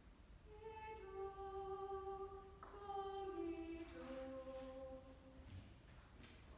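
Choir singing unaccompanied, a slow single melodic line of long held notes that steps downward in pitch.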